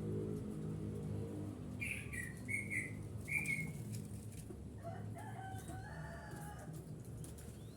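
Birds flapping their wings and calling: a run of four short high chirps between about two and three and a half seconds in, then lower calls and a few rising whistles from about five seconds, over a low steady hum.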